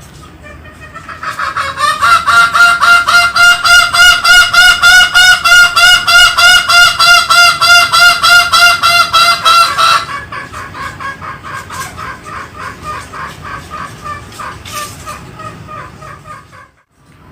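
A bird calling in a rapid, even series of loud pitched calls, about four a second, for some eight seconds. The series then goes on more faintly before cutting out abruptly near the end.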